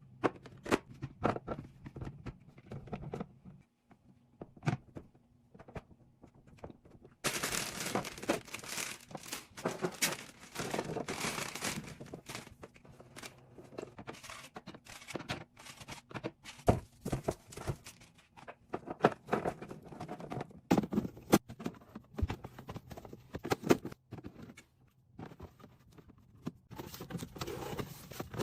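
Packaging being handled and items set down: plastic crinkling and tearing, with a stretch of steady crinkling about a quarter of the way in, and many light clicks, taps and knocks of containers being placed.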